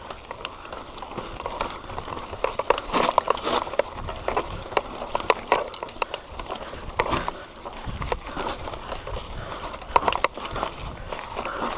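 Mountain bike rattling and clattering over a rough, grass-overgrown dirt trail: irregular clicks and knocks from the bike, and grass brushing against it. Wind rumbles on the microphone twice, about four and eight seconds in.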